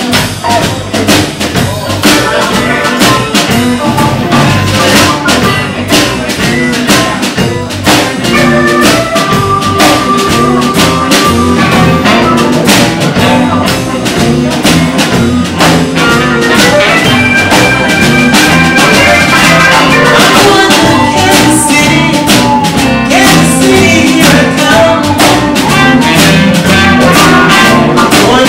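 Live band playing a Motown-style oldies number, with a drum kit keeping a steady beat under held instrumental notes.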